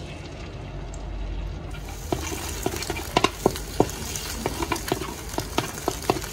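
Beaten egg sizzling in hot oil in a metal wok while a wooden spatula stirs and scrapes it. The sizzle comes up a little under two seconds in, and from then on it is dotted with sharp clicks and taps.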